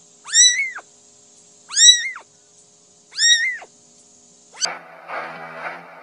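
Young kitten mewing three times, high thin calls about a second and a half apart, each rising then falling in pitch. Near the end, music cuts in.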